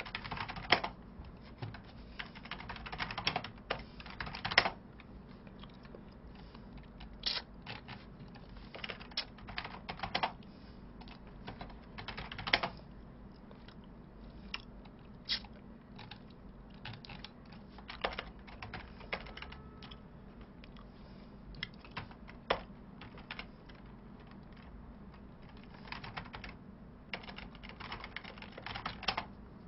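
Computer keyboard typing in scattered short bursts of keystrokes, with pauses between them.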